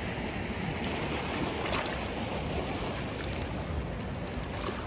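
Steady wind noise on the microphone over gently lapping sea water.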